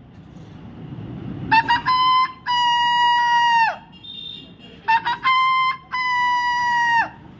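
A man imitating an animal call with his voice: two calls, each made of a few short notes and then a long held note that drops in pitch at the end.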